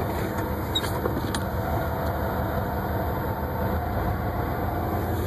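A 1995 Ford F-150's engine idling steadily through a straight-piped 2.5-inch exhaust, a low, even rumble, with a few faint clicks about a second in.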